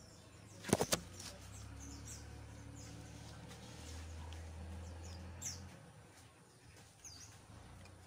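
Small birds chirping intermittently in the background. About a second in, three quick sharp clicks.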